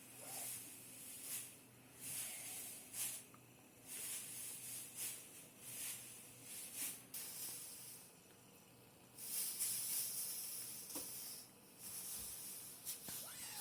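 Intermittent rustling and crinkling, in short irregular bursts with a longer stretch about nine seconds in, as decorations and fir branches are handled, over a faint steady low hum.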